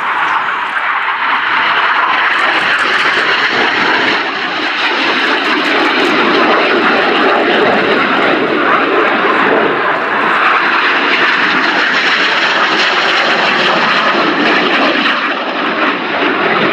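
Red Arrows BAE Hawk T1 jets flying a display pass, the loud, steady noise of their Adour turbofan engines. It swells in sharply at the start and stays loud throughout.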